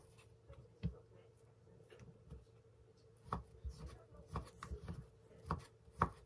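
Kitchen knife slicing a fried fish cake into strips on a wooden cutting board, the blade knocking against the board with each cut. The knocks come irregularly: one, then a pause of about two seconds, then a quicker run of cuts.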